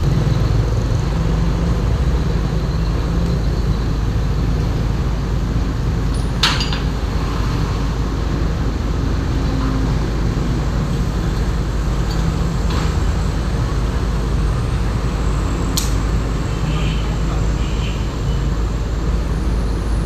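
Heavy diesel engines running steadily, mixed with road traffic, with a couple of sharp knocks about six and sixteen seconds in.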